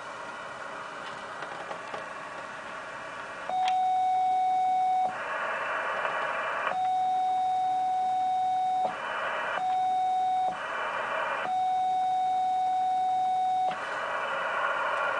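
Yaesu HF transceiver in CW mode giving out receiver hiss, then a steady single-pitch beep that comes on four times for one to two seconds each, with the hiss returning in the gaps. The beep is the CW tone of the carrier keyed to tune the automatic magnetic loop antenna.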